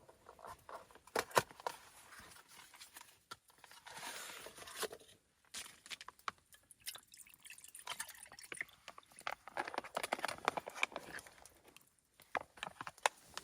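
Shizuoka oden broth being poured and dripping, with many small sharp clicks from handling. The pouring comes in two spells, one about four seconds in and a longer one near nine to eleven seconds.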